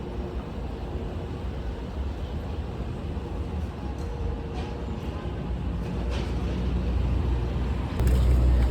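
Boat engine running with a steady low rumble that slowly grows louder, then jumps in loudness near the end.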